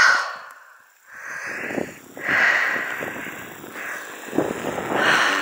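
Heavy breathing close to the microphone: several loud breaths in and out, each a noisy swell about a second long, from a hiker out of breath on a steep uphill climb.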